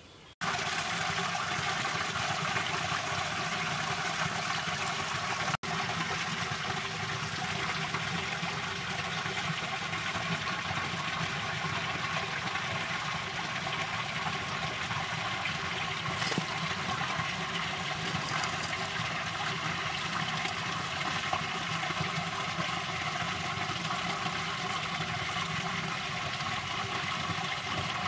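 Muddy water running steadily, a continuous rush that starts abruptly and drops out for an instant about five and a half seconds in.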